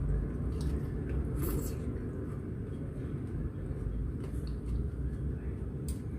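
Mouth sounds of someone eating close to the microphone: steady wet chewing with a few brief clicks.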